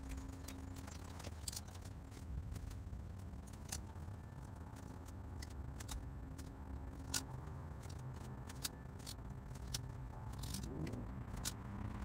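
Faint scattered clicks and small scrapes of hands handling thin insulated wires and butt connectors, over a low steady hum.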